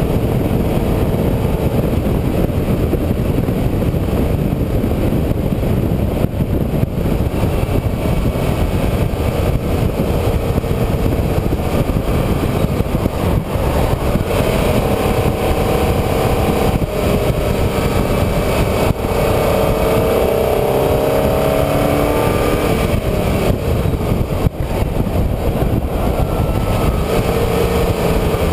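A road vehicle under way at speed: a loud steady rumble of wind and road noise, with the engine note climbing and dropping as it accelerates and eases off, most clearly in the second half.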